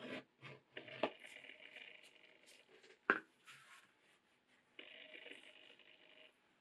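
Quiet leatherworking handling sounds: a few short knocks and scrapes of tools against leather and a cutting mat, with one sharp click about three seconds in. A faint steady tone comes and goes in the background.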